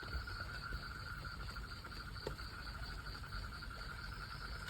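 Night insects chirring steadily as a high, fast-pulsing drone, with a faint tap about two seconds in.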